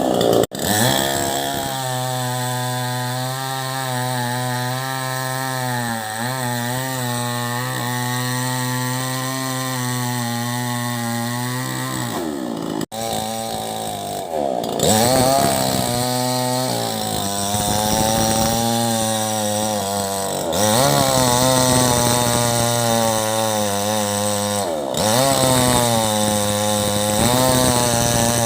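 Chainsaw running under load while cutting wood, its engine note sagging and recovering several times as the chain bites. The sound breaks off for an instant about half a second in and again near the middle.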